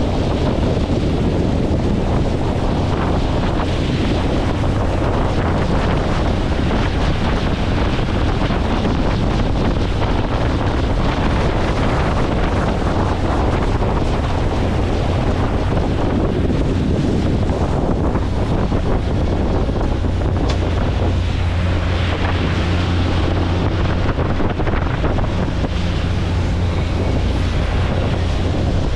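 Wind buffeting the microphone on a motorboat under way on a lake, over a steady low engine hum and rushing water.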